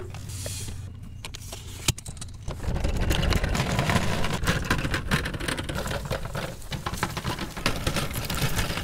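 Small hard wheels of a wheeled camp kitchen box rumbling and rattling over asphalt as it is pulled along by its handle. The rolling gets louder a couple of seconds in, after a single knock.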